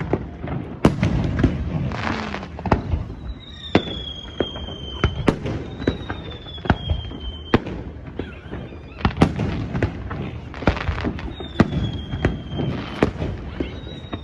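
Fireworks display: repeated sharp bangs of shells bursting overhead, with crackling between them and several high whistles that slide slightly downward in pitch.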